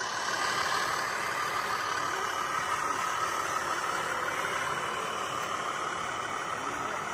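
Motor and gears of a handmade RC truck running steadily, a constant whir.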